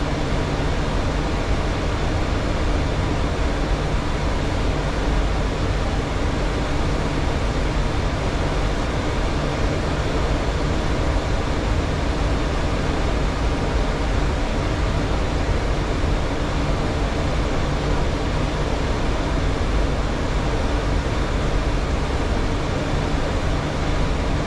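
Steady cockpit noise of a Boeing 737 in flight on approach: an even rush of airflow and air-conditioning hiss with a low hum underneath.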